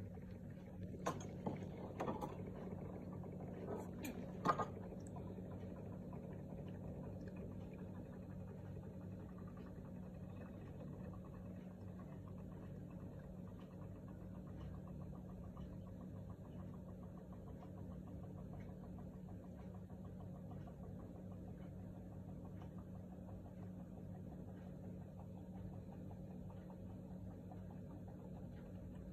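A few clicks and knocks from plastic being handled in the first five seconds. Then a steady low hum with faint rapid ticking while an upturned black ink bottle drains into the ink tank of a Canon PIXMA G3420.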